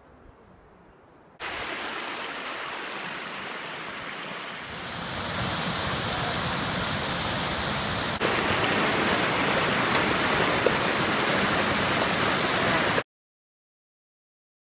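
Mountain creek rushing down a rocky cascade: a steady rush of water that starts suddenly about a second and a half in, grows louder in two steps, and cuts off abruptly into silence near the end.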